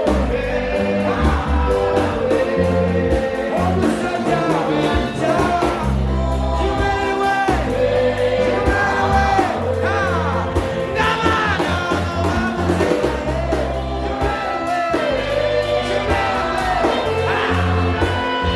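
Worship song: a lead voice sings over a band with a bass line and drums.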